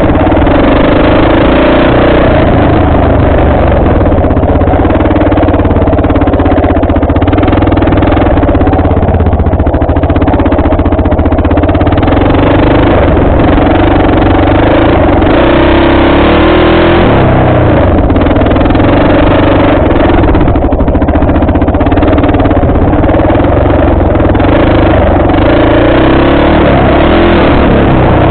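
Off-road vehicle engine running at steady throttle on a dirt trail, its pitch holding nearly constant with a brief dip and recovery partway through.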